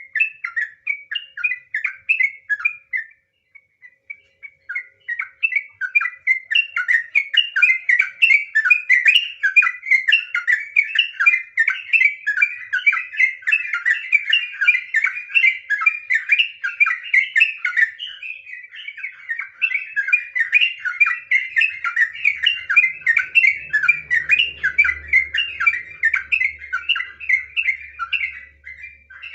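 Yellow-vented bulbul (trucukan) singing in long, rapid runs of chattering notes, the unbroken 'ropel' song, with a short break about three to five seconds in. A faint low hum comes in near the end.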